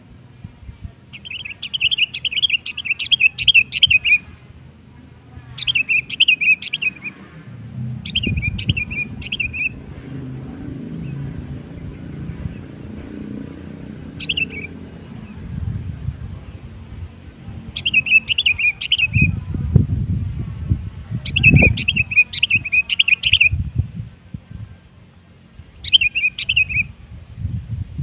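Sooty-headed bulbul (kutilang) song: seven short phrases of quick, rapidly repeated notes, each lasting from under a second to about three seconds, with pauses between them. A low rumble sits underneath, strongest about two-thirds of the way in.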